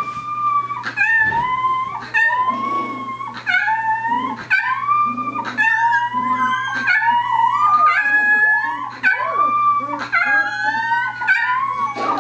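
Several young puppies howling together: a steady run of high, wavering howls, each about a second long and starting with a quick upward sweep, overlapping one another.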